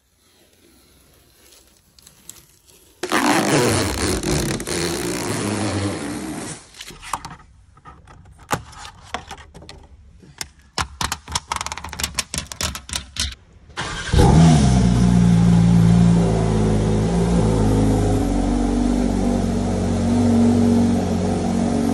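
Porsche 911 GT3's naturally aspirated flat-six starting about 14 seconds in, with a brief flare in revs, then settling into a steady, loud idle. Before the start there is a few seconds of loud noise, then a run of sharp clicks and knocks.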